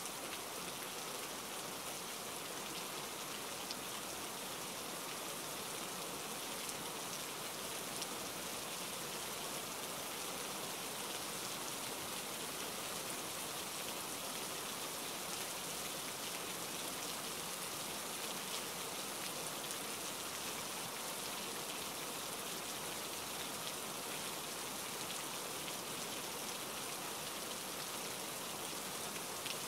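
Steady rain falling: an even hiss with many fine ticks of single drops, unchanging in level.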